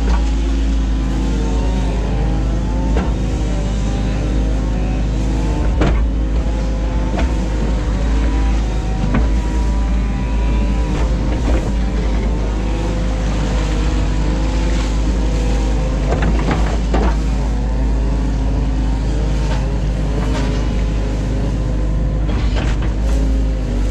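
New Holland Kobelco E 50.2 mini excavator heard from the cab: the diesel engine runs steadily under load while the hydraulics whine, dipping and rising in pitch as the boom and bucket move. A few knocks are heard along the way.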